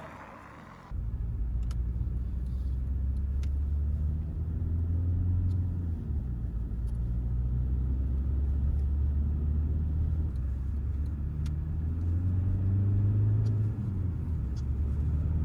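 Audi A4 B7's 1.9 TDI four-cylinder diesel (engine code BRB) driving under steady load through its newly fitted exhaust: a deep, steady exhaust drone that swells and eases a few times. It starts abruptly about a second in.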